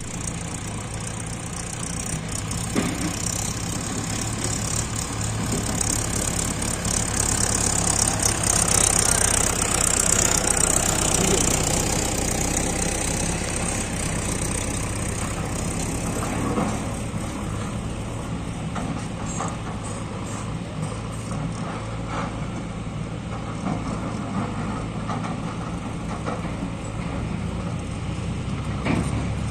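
Heavy diesel engine idling steadily, an even low hum, with a high hiss that swells a few seconds in and fades again after about ten seconds.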